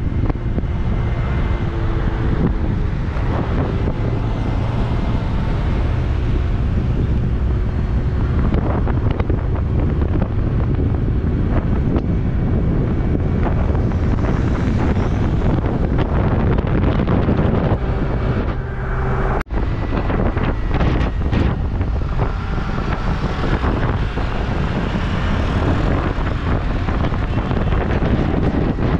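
Wind buffeting the microphone while riding a scooter, over a steady low rumble of road and traffic noise. The sound cuts out briefly about two-thirds of the way through.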